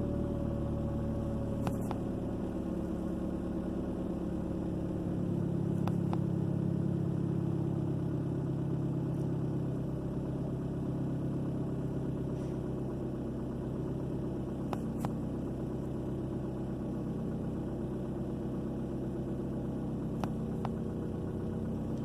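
2003 Ford Focus four-cylinder engine idling steadily at about 1,150 rpm, heard from inside the cabin, with a few light clicks as the handheld OBD2 scanner's buttons are pressed.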